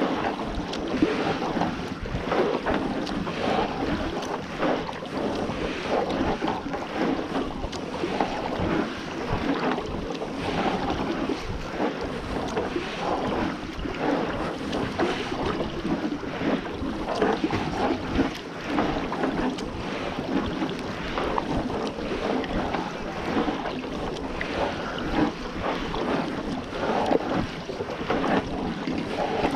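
Kayak paddle dipping and pulling through calm sea water, with splashes and drips off the blades and wind buffeting the microphone.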